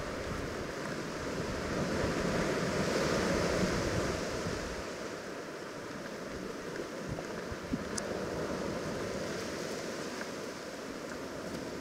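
Outdoor wind and surf noise: a steady rushing hiss with no distinct events. It swells about two to four seconds in, then eases off.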